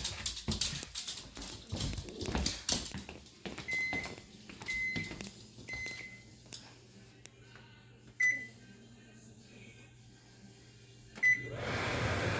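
Clicks and knocks of footsteps and handling, then an electric range's control panel beeping five times as it is set, the last two beeps louder. Just after the last beep, a steady fan-like rushing noise starts.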